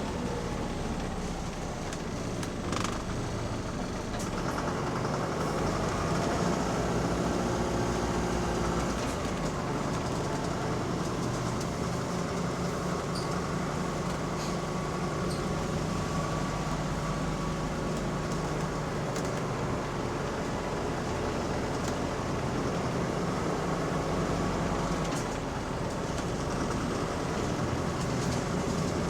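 Wright Gemini 2 double-decker bus heard from inside the passenger deck while under way: a continuous engine and road noise whose engine note shifts in pitch, with a few faint clicks and rattles.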